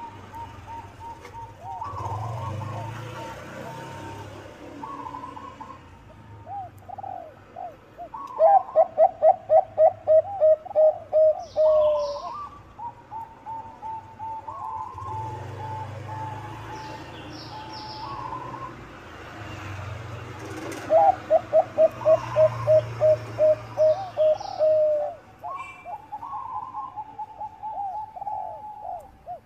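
Zebra doves (perkutut bangkok) cooing: two loud runs of quick rattling coo notes, about three to four a second, each a few seconds long, with softer coos between them. Short high chirps from another small bird come in a few times.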